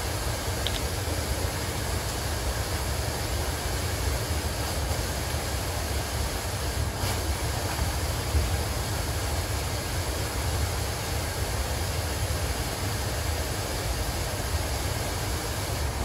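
Trane 90-ton rooftop unit running, a steady low rumble with an even hiss of fans and moving air.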